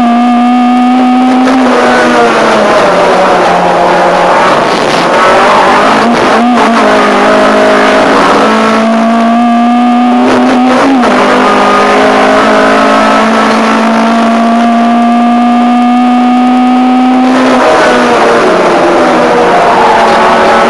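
Ford Fiesta 1.4 Zetec race car's four-cylinder engine running hard at high revs, heard from inside the cockpit. Its pitch climbs slowly and drops sharply four times, about two, six and a half, eleven and seventeen and a half seconds in.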